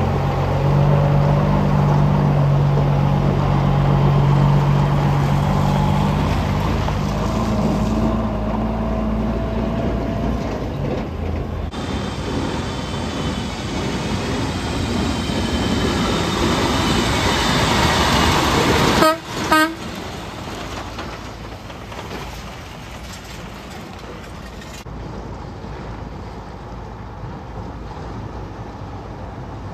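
Heavy diesel truck engines: a Kenworth T800 dump truck's engine runs loud and close as it pulls away, then a cement mixer truck's engine grows louder as it approaches. A short horn toot sounds about two-thirds through, after which a more distant truck engine runs at a lower level.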